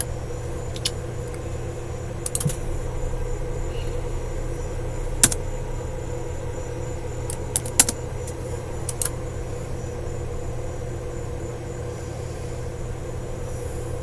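A few scattered clicks from a computer keyboard, single and in pairs, over a steady low hum.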